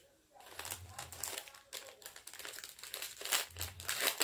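Packaging being handled, crinkling and rustling in quick, irregular crackles that start about half a second in.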